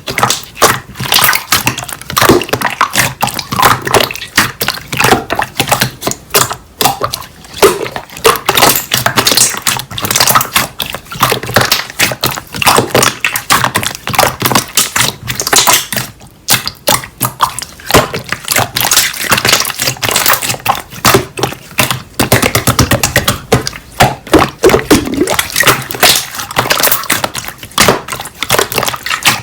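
Slime being squished, stretched and pressed by hand, giving dense, irregular crackling clicks and pops.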